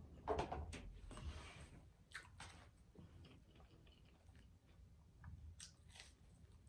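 Faint, close-miked eating sounds: chewing with small mouth clicks while chicken nuggets are dipped and eaten. There is a louder rustle about half a second in.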